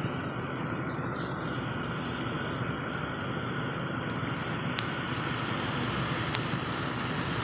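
Semi-truck traffic: heavy diesel trucks running and moving, a steady rumble and hiss, with a few sharp ticks near the end.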